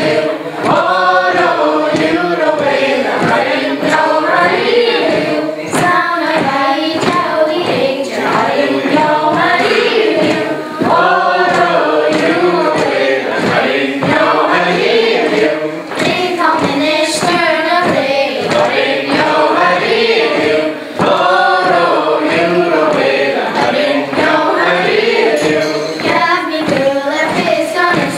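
A group of women and girls singing a Gaelic milling (waulking) song together in repeated short phrases, with the steady beat of the woollen cloth being worked on the table beneath the voices.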